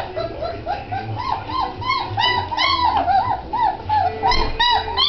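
Great Dane puppies whimpering and squealing: a steady run of short, high cries that rise and fall in pitch, several a second and sometimes overlapping.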